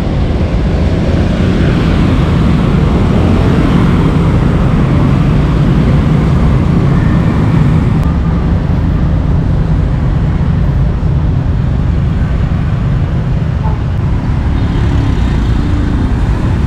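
Busy road traffic: many motor scooter and car engines running and passing in a steady, dense roar of noise.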